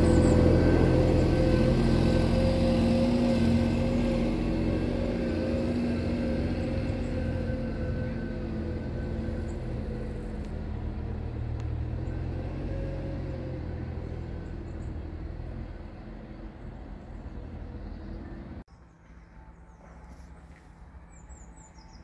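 A motor engine running with a steady rumble that fades slowly, then cuts off suddenly a few seconds before the end. A quieter outdoor background follows, with a few faint bird chirps.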